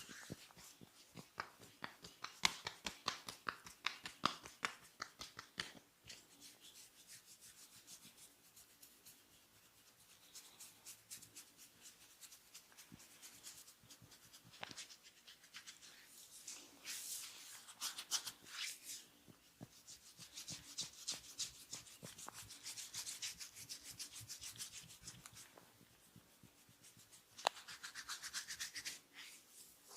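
A barber's hands rubbing and scratching through hair and scalp during an ASMR head massage: quick runs of crackling strokes in the first few seconds, then softer swishing rubs, with a few sharp crackles near the end.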